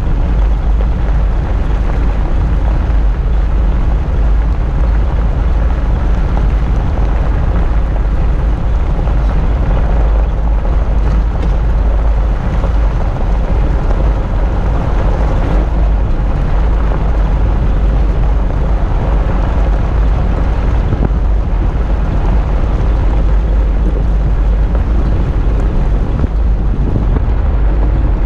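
Jeep driving steadily on a dirt road, its engine and tyre noise under a loud, constant wind rumble on the fender-mounted camera's microphone.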